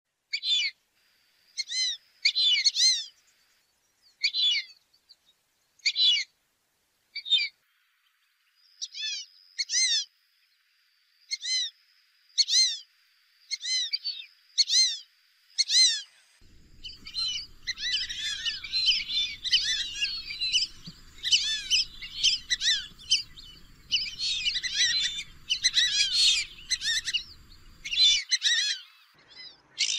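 Lesser whistling ducks calling: high, clear whistles repeated singly about once a second at first, then from about halfway many birds whistling over one another in a dense chorus, with faint low noise underneath.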